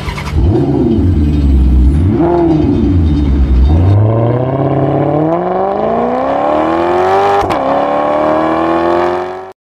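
Car engine revving hard: a few rises and falls in pitch, then one long climb through the revs with a brief drop about seven and a half seconds in, cutting off abruptly near the end.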